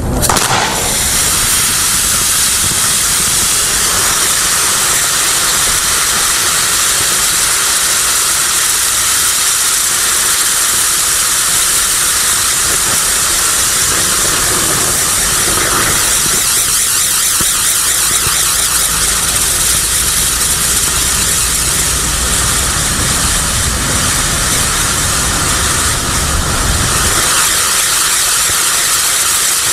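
Firework wheel (Absolute Fireworks Fortunes Wheel) flaring up within the first second, then spinning and spraying sparks with a steady, loud hiss.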